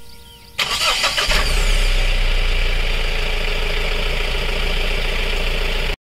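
Mahindra Bolero Pickup's 2.5-litre four-cylinder turbocharged BS6 diesel engine heard at the exhaust tailpipe, firing up about half a second in and then idling steadily. The sound stops abruptly just before the end.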